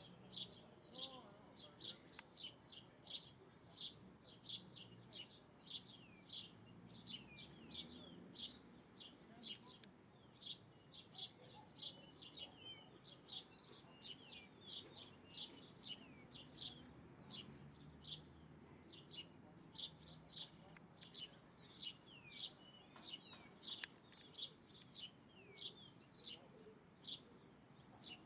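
Faint small-bird chirping: short, high chirps repeating about twice a second without a break.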